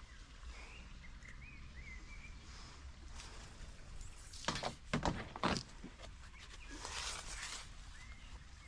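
Black plastic plant pots and potted saplings being handled: a cluster of sharp knocks and rustles about halfway through, then a brief scraping rustle. A bird chirps faintly near the start and again near the end, over a low steady rumble.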